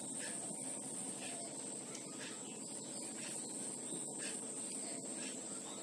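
Faint, irregular scratches of a marker pen writing on a whiteboard, over a steady high-pitched tone.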